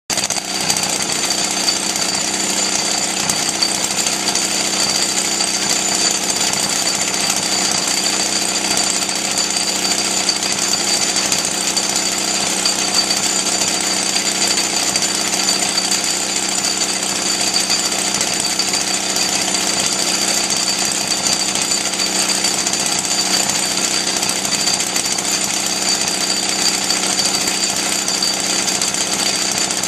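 1939 Maytag twin-cylinder two-stroke engine running steadily with a fast, even exhaust beat while driving a grain mill, with a steady high-pitched whine above it.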